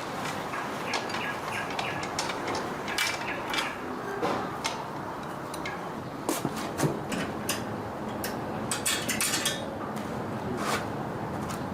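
Scattered metal clinks and taps of hand tools working on bicycle parts, in irregular clusters over a steady background hiss.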